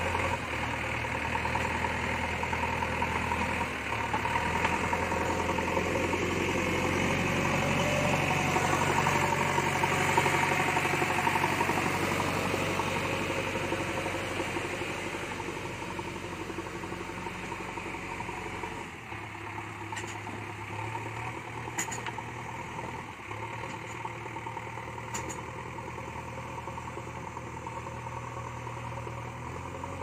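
JCB backhoe loader's diesel engine running steadily as the machine carries a large concrete pipe in its loader bucket, loudest in the first half, then quieter as it moves away. A few faint clicks near the end.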